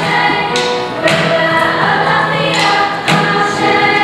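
Children's choir singing, with hand drums striking now and then.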